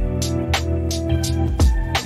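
Background music: sustained instrumental chords over a steady drum beat.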